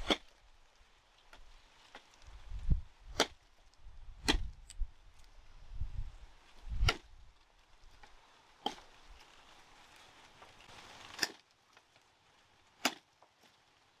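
Machete chopping into sugarcane stalks at their base: about seven sharp, irregularly spaced strikes, some with a dull low thud.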